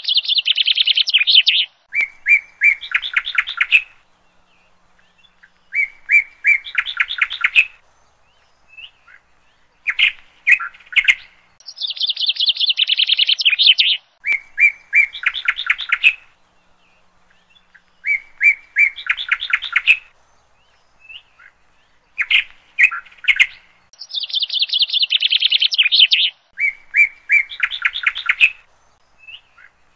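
Small songbird singing: a fast falling trill followed by runs of quick, sharp chirps, with short pauses between phrases. The same song sequence comes round about every twelve seconds, like a looped recording.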